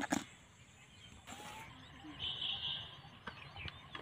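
Live fish flapping and knocking against a plastic bucket, a couple of sharp knocks right at the start. Then faint outdoor background noise, with a short high chirp a little past the middle and a few light ticks.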